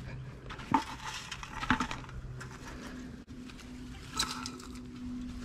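Footsteps in boots through leaf litter, twigs and weeds on a steep bank, with a few sharper steps and snaps about three quarters of a second in, near two seconds, and a longer rustle about four seconds in.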